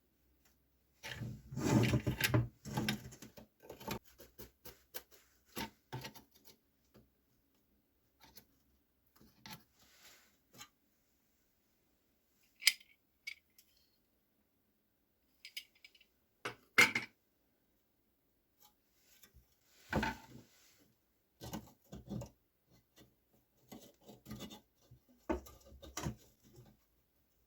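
Intermittent handling noises from oil lamp parts being worked on: a burst of rubbing and knocking early on, then single sharp clicks and short scrapes spaced a few seconds apart.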